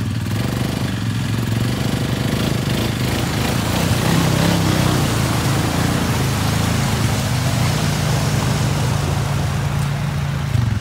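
ATV engine running steadily under load while its tyres churn and splash through deep mud and water, driving the quad out of a flooded bog.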